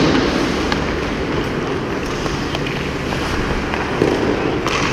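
Hockey skates scraping and gliding on rink ice, a steady rushing noise, with a few faint taps of the stick on the pucks.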